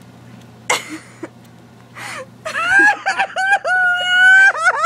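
A person's high-pitched squealing cries, not words. A short sharp breath comes about a second in, then several short wavering cries from about halfway, ending in one long held squeal.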